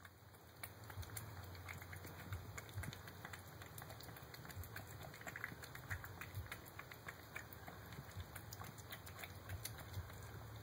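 A cat eating from a bowl close by: a fast, irregular run of small chewing and licking clicks.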